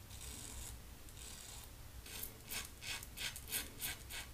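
Double-edge safety razor scraping through two days of stubble under shaving-cream lather, a faint rasp. From about two seconds in it comes as a quick run of short strokes.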